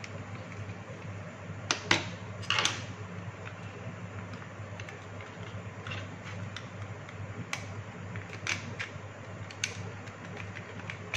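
Plastic case of a Hioki clamp meter being handled and pried apart with a thin tool: two sharp clicks about two seconds in, a short scrape just after, then scattered light ticks and snaps. A steady low hum runs underneath.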